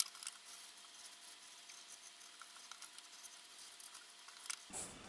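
Faint hiss with a few soft ticks and light scratches: pencils and the drawing board being handled.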